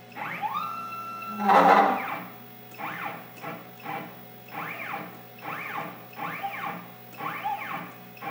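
Stepper motors of a CNC Shark HD5 router whining as its Z axis is jogged down in short moves. A whine climbs and holds for about a second, then a string of brief whines each rise and fall in pitch. About a second and a half in comes a louder, rougher burst of noise.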